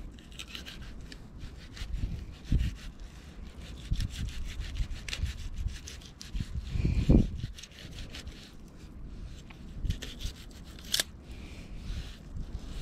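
Knife blade scraping and rasping along a fish's body in short repeated strokes as the fish is cleaned on a rock. A few dull knocks come from handling it, the loudest about seven seconds in.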